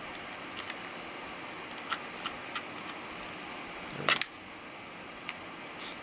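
Small scattered metal clicks and ticks of a T6 Torx screwdriver backing the side mounting screws out of a 2.5-inch laptop hard drive, with one louder knock about four seconds in.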